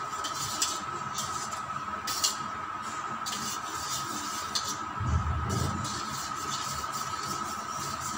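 Raw eggs being hand-beaten in a steel bowl: irregular light clinks and scrapes of the utensil against the metal, over a steady high hum, with a dull low thud about five seconds in.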